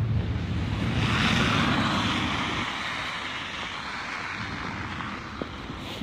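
A car passing on a slushy, snow-covered road: the hiss of tyres through wet snow swells about a second in and slowly fades away, over a low rumble.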